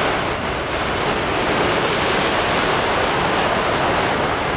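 Sea surf surging in and breaking against shoreline rocks, a steady wash of churning water.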